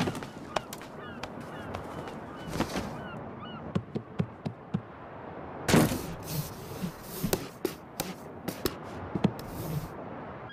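Cartoon foley of a big animal wrestling with a cardboard box: scattered rustles and knocks, with a loud rustling burst about six seconds in and another shorter one near the end. Short high chirps sound throughout.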